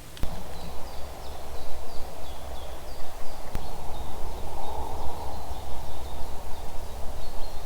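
Small bird calling, a run of short high falling notes about three a second, over a steady rushing noise with a low rumble.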